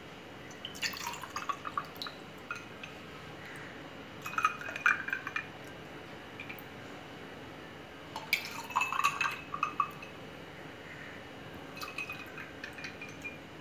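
Rose milk being poured into glass tumblers over ice cubes, in several short bouts of splashing, with clinks of ice and the plastic ladle against glass.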